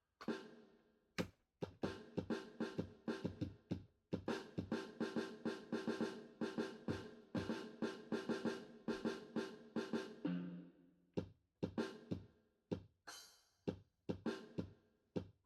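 Drums being hit in a fast, dense run of strokes, thinning to separate single hits after about ten seconds.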